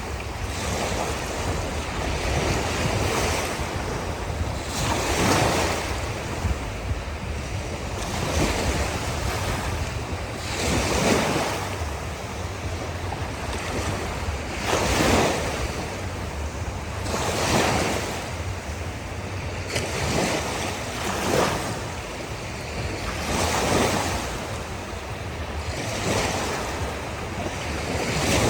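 Ocean waves breaking on a shore, each wave a rush of surf that swells and falls every few seconds, over a steady low rumble.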